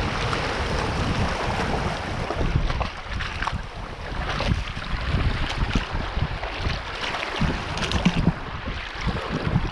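Shallow seawater splashing and sloshing around a hand holding a thornback ray in the water as it is released, with wind noise on the microphone.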